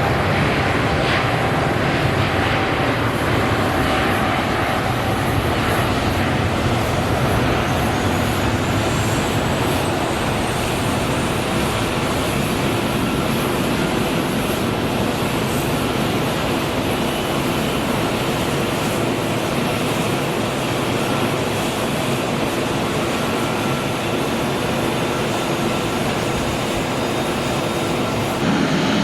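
Jet airliner engines running loud and steady, a dense roar with a thin high whine that climbs in pitch a few seconds in.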